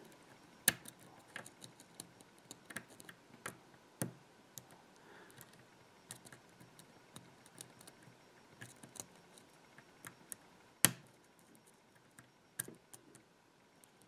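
Faint, irregular metallic clicks and ticks of a pick and tension tool working the pins of a Kensington tubular laptop lock, with one louder click about eleven seconds in.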